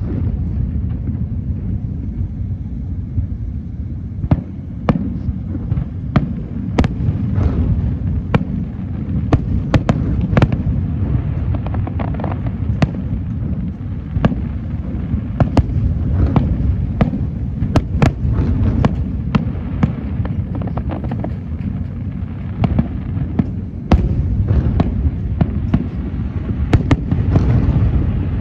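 Aerial fireworks display going off continuously: a steady low rumble of shells with many sharp, irregular bangs and cracks throughout.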